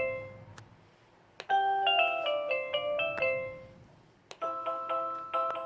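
Google Nest doorbell's Christmas-theme chime: a short melody of chiming notes plays and fades out, then plays again about a second and a half in. Near the end a second, different chime tune of the same theme begins.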